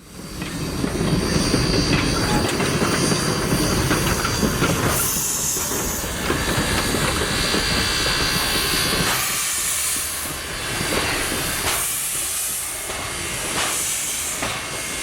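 Train running on the rails: a steady rumble of wheels with hissing over it, and a few sharp clacks from about five seconds in.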